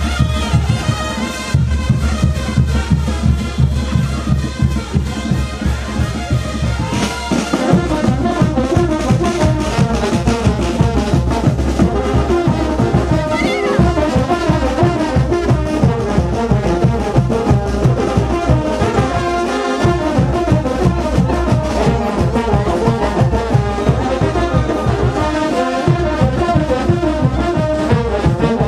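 Brass band playing wititi dance music over a steady drum beat; the band comes in fuller about seven seconds in.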